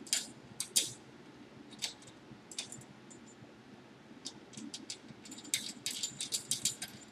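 Light metallic clicks and clinks of a washer and nut being fitted by hand onto the bottom of a sewing machine thread stand's post under the table. They are scattered at first and come quicker over the last few seconds.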